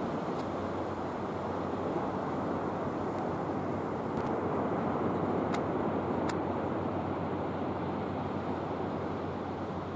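Steady jet rush of a model A-10 Thunderbolt II flying overhead, swelling slightly about halfway through as it passes.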